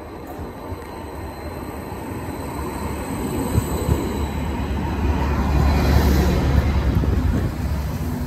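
Greater Anglia Class 755 bi-mode multiple unit running along the platform, close by. A deep rumble of engine and wheels on rails builds as the carriages pass, is loudest about six seconds in, then eases slightly.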